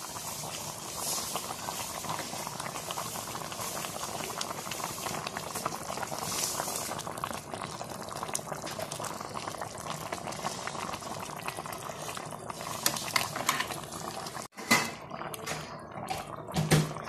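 Asam pedas gravy boiling in a pan, a steady bubbling crackle. A few sharp knocks near the end.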